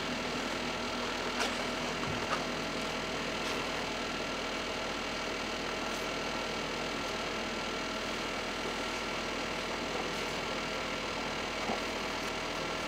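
Steady background hum and hiss, unchanging throughout, with a few faint light clicks.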